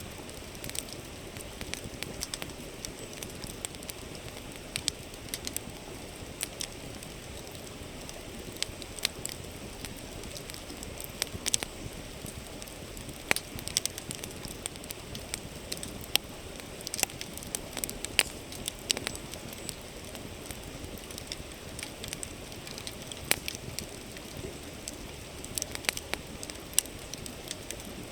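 Wood campfire crackling and popping in sharp, irregular snaps, over the steady rushing murmur of a flowing river.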